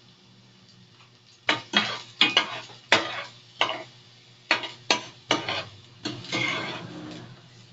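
A spatula scraping and knocking in a wok, stirring garlic and onion sautéing in oil. About ten sharp strokes start about a second and a half in, with a longer scrape near the end.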